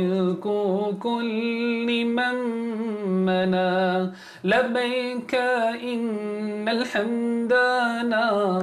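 A man chanting solo and unaccompanied in the style of a qari, with long held notes, wavering pitch ornaments and a short breath break about four seconds in.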